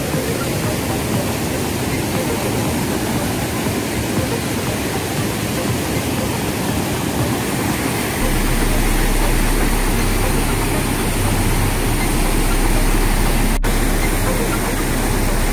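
Waterfall and rapids: white water rushing over rock in a steady, loud roar. About eight seconds in, a deeper rumble joins and the sound grows a little louder.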